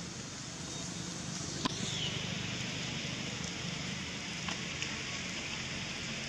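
Steady outdoor background hiss over a faint low hum, with one sharp click about a second and a half in.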